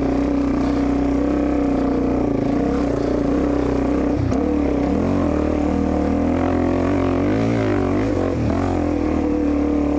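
Dirt bike engine running steadily while riding a trail, with the revs rising and falling a few times in the second half.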